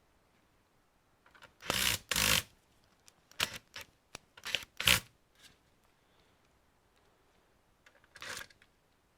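Handling noise from working on the computer's internal parts: a run of short clicks and scrapes, loudest in a burst about two seconds in and again around five seconds, with one more near the end.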